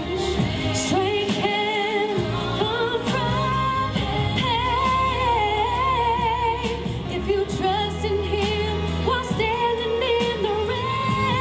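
A woman singing a Christian ballad over instrumental accompaniment, her held notes wavering with vibrato.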